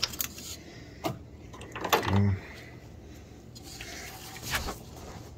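Power steering hose fittings and tools being handled at a steering gearbox: a few scattered clicks and knocks, with a louder clunk about two seconds in and another near the end.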